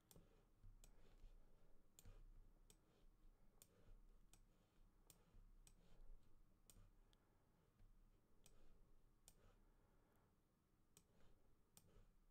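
Faint, irregular computer mouse clicks, about one or two a second, over near-silent room tone.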